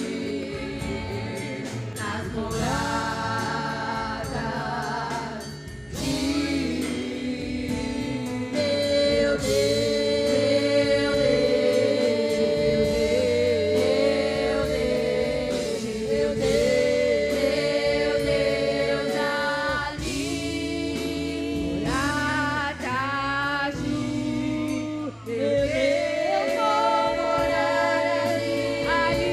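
Women's gospel vocal group singing a praise song in several parts, with musical accompaniment and long held notes, pausing briefly between phrases.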